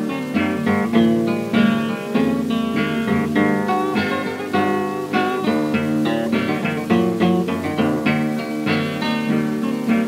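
Acoustic guitar blues played on a 1930 78 rpm record: a run of picked notes and bass strings in a steady rhythm, with no singing.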